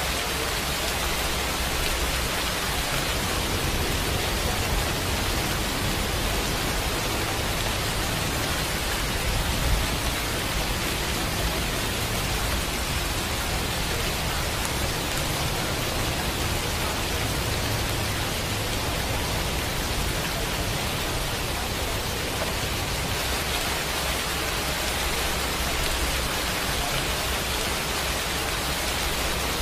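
Steady, unbroken rain-like hiss with a low rumble beneath it, even in level throughout: the masking noise track of a subliminal audio.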